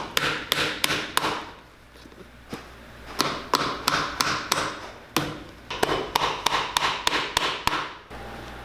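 Cobbler's hammer striking a shoe heel, nailing on leather heel lifts: quick sharp strikes, about three a second, in runs with short pauses, stopping abruptly near the end.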